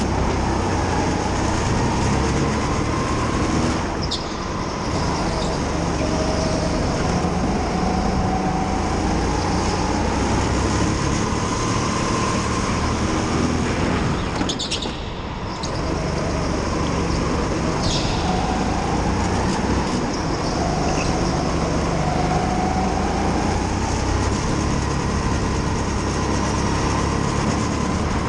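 Rental go-kart running flat out around an indoor track, heard from a camera mounted on the kart: a steady motor note that rises and falls in pitch with speed through the corners, over a continuous rumble of tyres and chassis. The sound dips briefly about halfway through.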